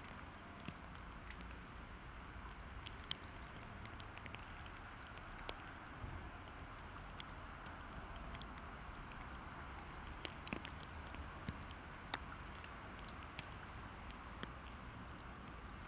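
Faint outdoor ambience in heavy snowfall: a steady low rumble and hiss, scattered with many small sharp ticks of falling snow striking surfaces.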